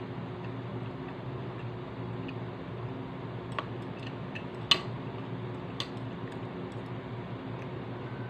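Metal chopsticks clicking against a glass dish five or so times in the middle of the stretch, one tap clearly louder than the rest. A steady low hum runs underneath.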